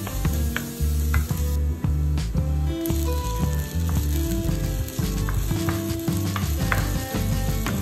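Diced onion and tomato sizzling in a nonstick frying pan, with the scrape and frequent light taps of a wooden spoon stirring them. Low background music runs underneath.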